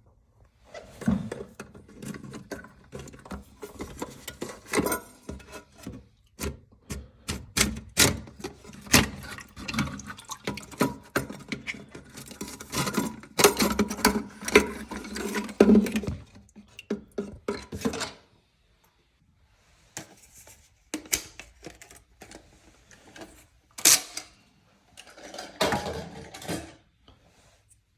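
Irregular clicks, knocks and splashes from hands working on a toilet tank's fill valve, busy for the first two-thirds and then sparse.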